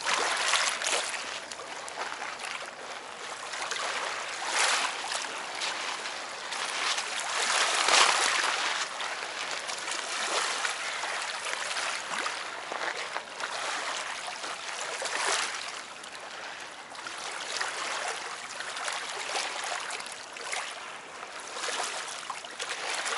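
Small lake waves lapping and splashing against rocks and a pebble shore, swelling and falling back every few seconds.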